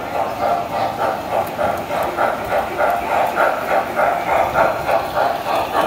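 Standard-gauge toy steam locomotive pulling freight cars over tinplate three-rail track: a steady run of rolling wheels and motor with a regular clicking rhythm of about two to three beats a second.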